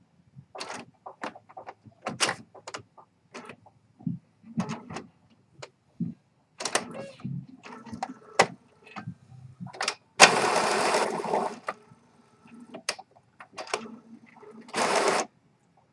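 Epson WorkForce inkjet printer going through its power-up ink-charging cycle: the print-head carriage shuttles back and forth, with a run of short clicks and clatters and two longer motor whirs, one about ten seconds in and one near the end.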